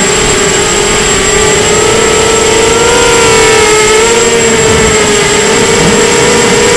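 Brushless motors and HiQ 6x3 propellers of an Emax Nighthawk 250 FPV quadcopter whining in flight. The loud steady whine wavers up and down in pitch with the throttle, over a constant rushing hiss.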